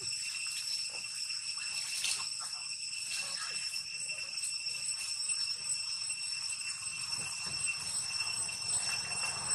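A steady high-pitched insect chorus of cicadas droning at several pitches at once, with a few faint soft ticks.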